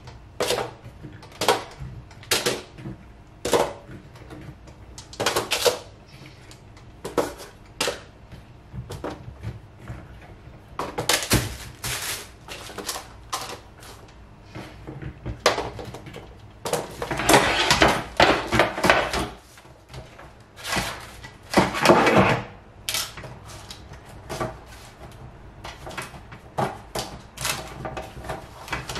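Cored green bell peppers being set down one after another on a parchment-lined metal baking sheet: irregular light taps and paper rustling. There are two longer, louder stretches of handling noise about two-thirds of the way through.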